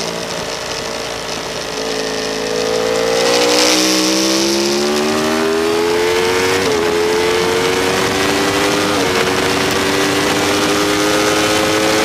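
Inline-four superbike engine heard onboard, accelerating hard out of a corner with the pitch climbing steadily, then shifting up twice, about six and a half and nine seconds in, the revs dropping briefly and climbing again after each shift.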